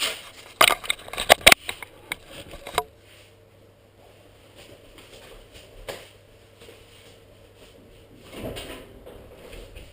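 A quick run of sharp clicks and knocks in the first three seconds, then a quiet stretch with a faint steady low hum and a couple of soft knocks.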